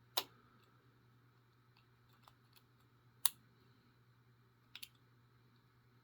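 Sparse sharp clicks of a lock pick working the pins of a Master Lock 410 LOTO padlock under light tension: two distinct clicks about three seconds apart, a quick double click near the end, and fainter ticks between.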